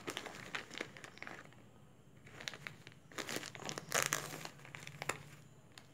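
Plastic courier mailer bag crinkling and rustling in irregular bursts as it is handled and cut open, the loudest burst about four seconds in.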